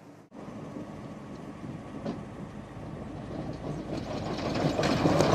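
Electric off-road car driving, a noisy drive and tyre sound without a clear engine note that grows steadily louder as it comes closer.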